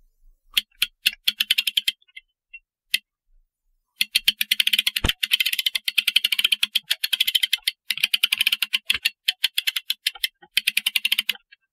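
Clock mainspring winder's ratchet clicking rapidly as its crank is turned, in four runs separated by short pauses, with one dull knock about five seconds in.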